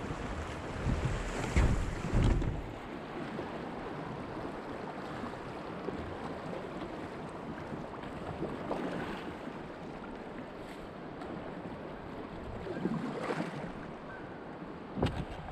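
River current rushing around a kayak, with wind buffeting the microphone and the splash of paddle strokes now and then. There is a sharp knock near the end.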